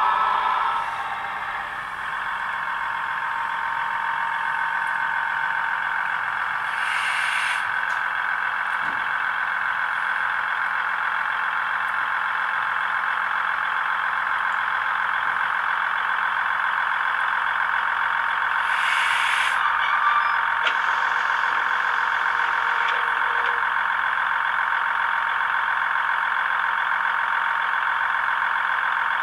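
Recorded diesel engine sound of a British Rail Class 158 diesel multiple unit, played through the small speaker of a Bachmann OO-gauge model by its Zimo MX645P22 sound decoder. The engine runs steadily as the unit pulls in and stops, with two short hisses about twelve seconds apart.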